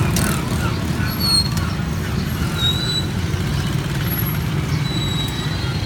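Steady low rumble of street traffic, with a few brief faint high-pitched squeaks.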